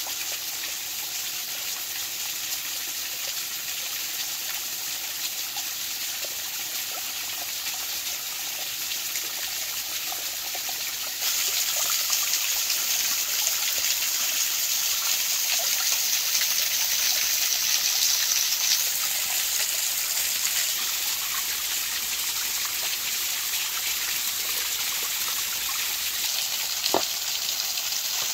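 Small waterfall splashing down a rock face, with a fish being rinsed and cleaned by hand in the falling water. The splashing gets louder about eleven seconds in, and there is a single short knock near the end.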